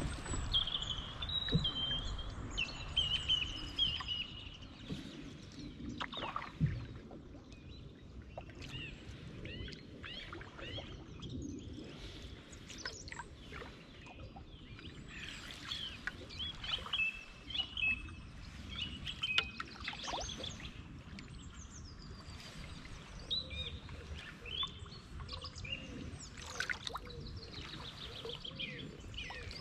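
Small birds singing and chirping along the riverbank, with the splash and drip of a canoe paddle in the water and a steady low rumble underneath.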